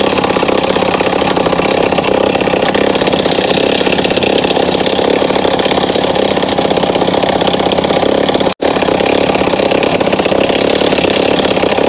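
Petrol-engined rock drill running and hammering into stone with a fast, steady, very loud clatter. The sound cuts out for an instant about eight and a half seconds in.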